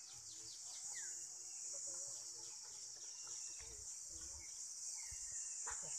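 Steady, high-pitched chorus of insects in the surrounding forest.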